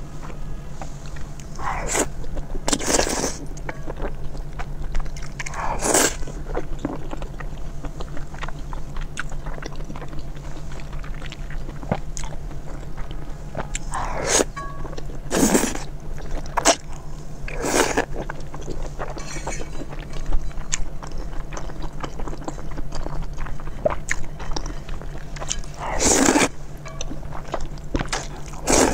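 Close-miked eating sounds: wet chewing of chewy food and loud slurps of noodles from a bowl of broth, the slurps coming every few seconds, over a steady low hum.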